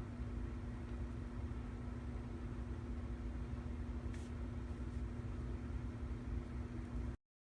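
Steady low rumble with a constant hum, like a running machine or appliance, with one faint tick about four seconds in; it cuts off abruptly just after seven seconds.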